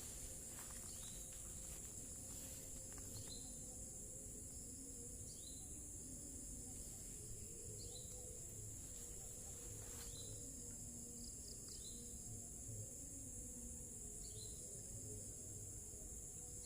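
Steady high-pitched insect chorus of crickets or cicadas at dusk, with a short rising chirp every two seconds or so and a faint low wavering tone underneath.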